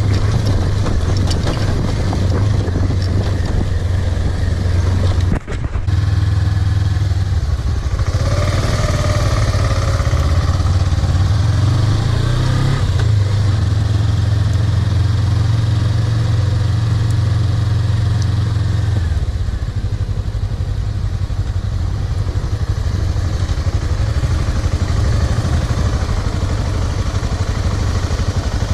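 Suzuki V-Strom 250's parallel-twin engine running steadily under a motorcycle being ridden off-road, with a brief break about five seconds in.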